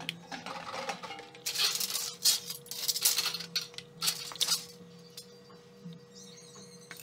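Aluminium U-profile strips clinking and rattling against each other as they are handled and pulled from a stack. The clatter comes in a busy run through the middle, then dies down.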